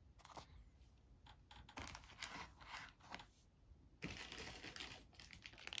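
Quiet, scattered light clicks and faint rustling of board-game components being handled: a paper pad and bagged plastic pieces set down on the board. A faint steady hiss comes up about four seconds in.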